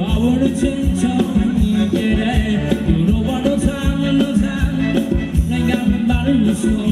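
Loud Thai ramwong dance music from a live band: a steady drum beat under bass, with a sung melody.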